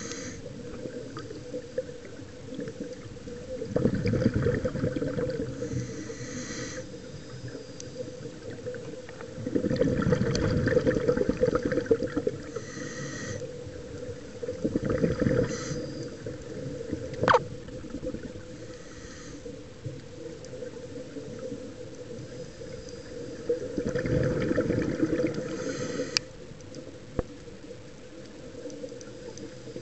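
Scuba regulator breathing heard underwater: a bubbling rush of exhaled air every several seconds, each lasting two to three seconds, with short hisses of inhalation between, over a steady low hum. A single sharp click comes about halfway through.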